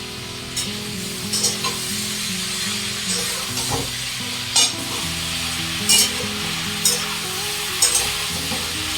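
Chopped vegetables stir-frying in hot oil in a pan: a steady sizzle, with a spatula scraping and knocking against the pan about once a second.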